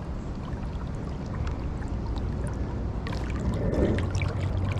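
River water flowing steadily around a wader, with a low rumble and a few faint clicks scattered through it.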